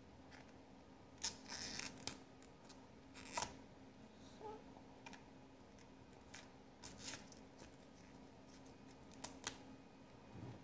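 Faint snapping and tearing as pieces of a raw vegetable are broken off by hand, a handful of short sharp snaps scattered irregularly through, over a faint steady low hum.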